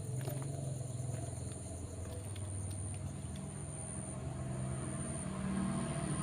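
A low, steady rumbling hum, like a distant engine, that rises a little in pitch about halfway through. Over it runs a thin, steady high-pitched insect drone.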